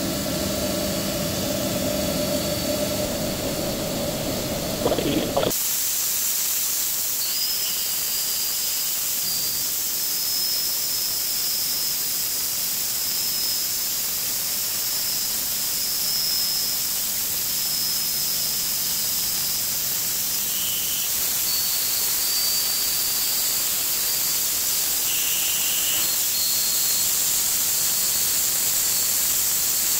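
CNC vertical machining centre side-milling with a 12 mm end mill in one full-depth pass, 27 mm deep and 5 mm wide. A machine hum with steady pitched tones gives way abruptly, about five seconds in, to a steady hiss with a faint high whine that comes and goes. The end mill takes the heavy cut without trouble.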